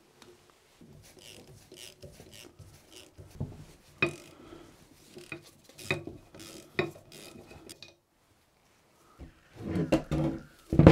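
Ratchet wrench and steel bolts clinking as the bolts on a saildrive's flange are loosened: scattered sharp metal clinks, each with a brief ring. After a short pause about eight seconds in comes a louder metal clatter.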